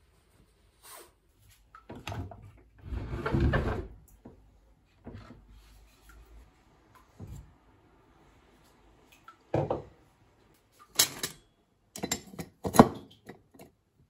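Kitchen handling noises: a longer rustling stretch a few seconds in, then a run of sharp knocks and clinks as glassware is taken from a wooden dish rack, the loudest near the end.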